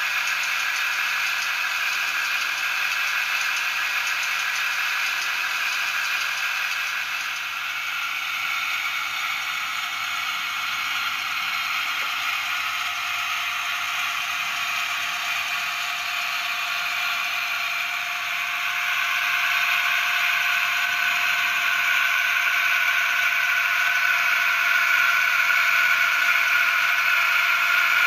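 Zimo 645R sound decoder in a Heljan OO-gauge Class 28 Co-Bo model playing its recorded Crossley two-stroke diesel engine sound through the model's small on-board speaker as the locomotive runs. The sound is thin, with no deep bass, and it grows louder about two-thirds of the way through.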